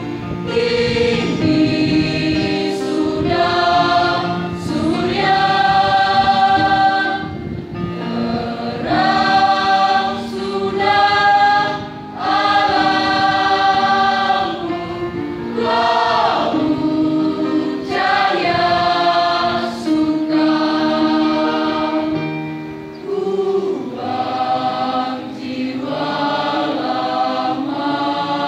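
Large school choir singing together, holding long notes in phrases with brief breaks between them.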